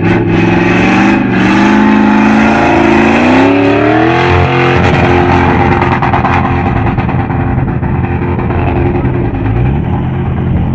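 Car engine revving hard under acceleration, its pitch climbing over the first four seconds and then held steady at high revs.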